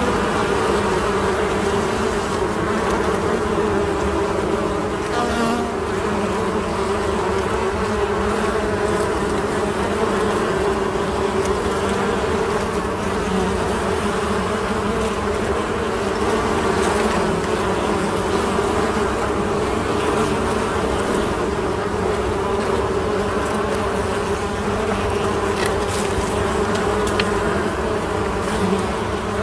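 Honeybees buzzing at a hive entrance: a steady, continuous drone of many wingbeats as bees fly in and out.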